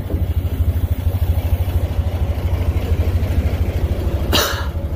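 Small fishing boat's engine running with a steady low rumble. A brief rushing noise cuts in about four seconds in.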